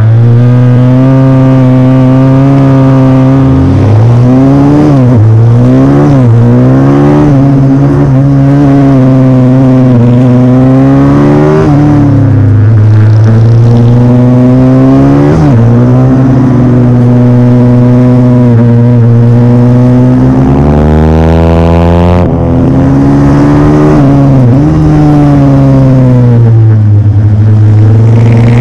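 YCF SM 150 pit bike's single-cylinder engine at race pace, heard close up from on board: the revs climb and fall again and again through gear changes and braking for corners, with sharp drops about 12, 15 and 22 seconds in.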